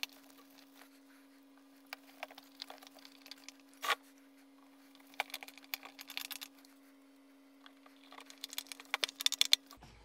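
Small screws being screwed in by hand on an Antminer S9 miner's casing: scattered small clicks and scrapes, coming in quick runs around the middle and near the end, over a faint steady hum.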